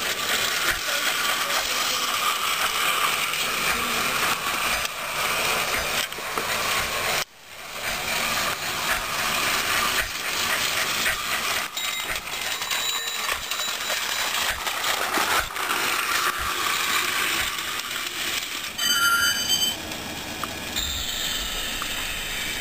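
Battery-powered toy train motor whirring and its plastic wheels rattling along plastic track, steady throughout. The sound breaks off briefly about a third of the way in and resumes, and a brief high beep sounds near the end.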